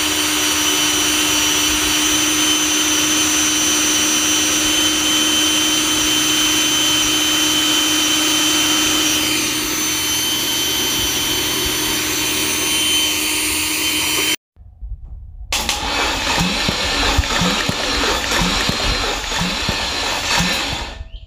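Electric drill running steadily at speed, driving an oil-priming pump to push oil through a rebuilt 5.3 Gen 3 V8 long block, with a constant whine over the motor noise. About fourteen seconds in it cuts off. After a short gap comes a rougher mechanical noise with a regular low pulse about every second.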